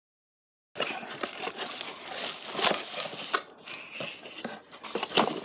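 Plastic bubble wrap crinkling and rustling as it is pulled and unwrapped from around a handheld microphone, with many small sharp crackles. It starts after a moment of silence, about three-quarters of a second in.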